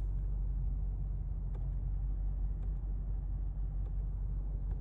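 Steady low rumble of a running 2008 Lexus LX570, with a few faint clicks during it.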